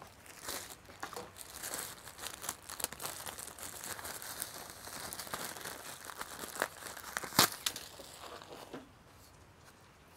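Plastic packaging bag crinkling and rustling as it is handled and opened, a dense run of small crackles with a sharper crackle about seven seconds in. The crinkling stops about nine seconds in.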